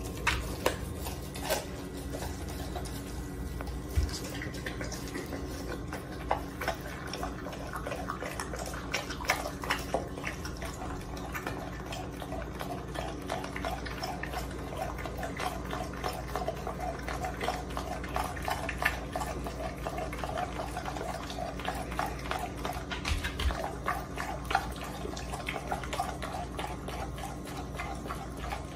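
Dog chewing a whole raw chicken, with wet smacking and many short, sharp crunches.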